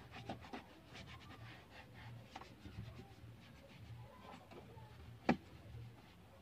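Foam sponge rubbing protectant over a car dashboard: a faint, uneven scuffing wipe. A single sharp click a little after five seconds in.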